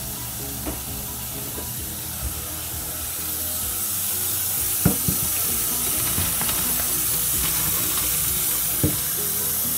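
Boiled dumplings being strained: their hot cooking water is poured off through a strainer with a steady rushing hiss that grows a little louder partway through. There are a couple of short knocks of the pot, about five seconds in and near the end.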